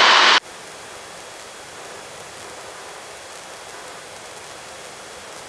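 Steady hiss on the helicopter's headset intercom and radio line, after a loud burst of radio static that cuts off sharply about half a second in.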